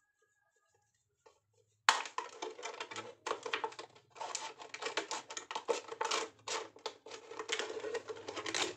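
Thin plastic water bottle being cut with scissors, crackling and crinkling in a rapid, uneven run of sharp clicks as the blades snip through the plastic and the bottle is handled. It starts suddenly about two seconds in, after near silence.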